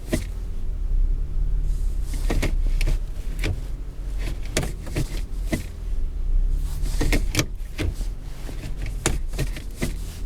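Gearshift lever of a 2007 Lexus ES350 being pushed repeatedly through its shift gate, giving a series of sharp clicks and clunks about a second apart over a steady low hum. The shifter intermittently sticks between Reverse and Park instead of springing over into Park, which the owner takes for a defect.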